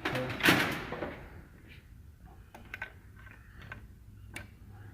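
Hand tools working on a stripped-down engine: a loud rustling, scraping burst about half a second in, then scattered light metallic clicks and taps, with one sharper click near the end.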